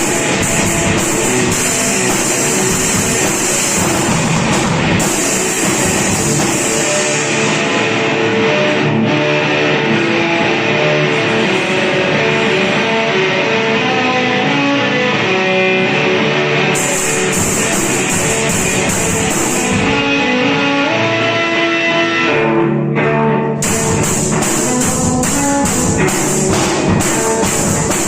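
Rock music with guitar and a drum kit. The drums and cymbals drop out for a long stretch in the middle and come back in near the end.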